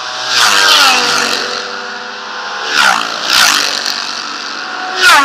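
Racing motorcycles passing close at full speed one after another, about four in quick succession. Each high-revving engine note drops in pitch as it goes by, and the last pass near the end is the loudest.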